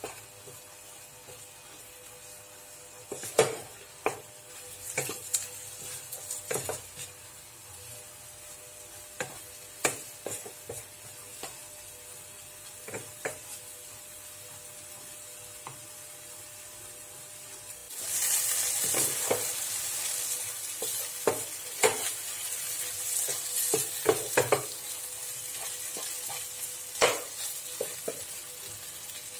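Chicken pieces frying in a nonstick pan and stirred with a wooden spatula: irregular scrapes and knocks of the spatula against the pan over a steady sizzle. The sizzle suddenly gets louder a little past halfway through.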